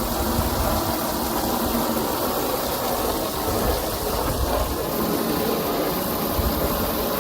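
Water from a garden hose running steadily, splashing into a duck pool as it is filled, with a low rumble underneath.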